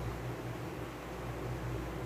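Faint steady hiss with a low hum and no music: a short gap in the DVD menu's background music while the menu changes screens.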